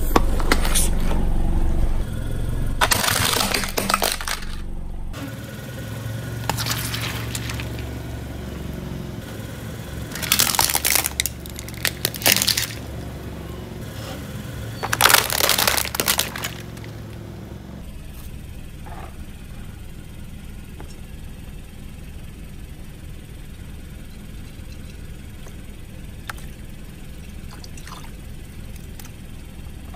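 A car's tyres rolling over and crushing objects, with a low engine rumble under three bursts of cracking and crushing: about three seconds in, around ten to twelve seconds, and around fifteen seconds. After about eighteen seconds only a quieter steady background remains.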